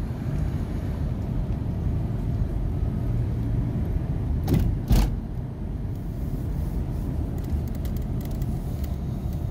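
Steady low rumble of a car driving on an unsealed dirt road, heard from inside the cabin, with two sharp knocks about half a second apart near the middle.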